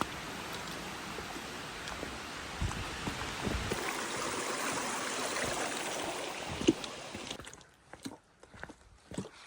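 Steady rush of a brook's running water, which cuts off suddenly about seven seconds in, leaving a quiet background with a few soft knocks.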